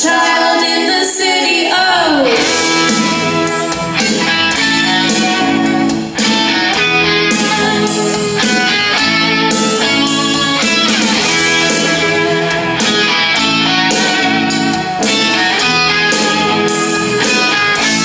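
Live band playing a rock song: strummed electric guitar over a steady drum beat, with singing.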